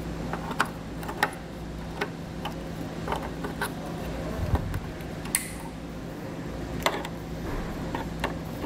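Irregular plastic clicks and knocks as a car taillight's wiring connectors are plugged back in and the plastic light housing is handled, over a steady low hum.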